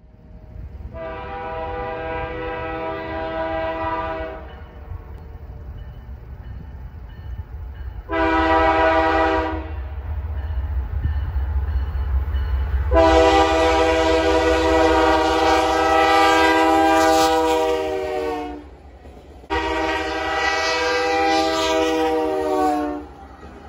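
Canadian Pacific diesel freight locomotive's air horn sounding four blasts, long, short, long and long, as a warning for a road crossing. A steady low rumble of the approaching train runs underneath.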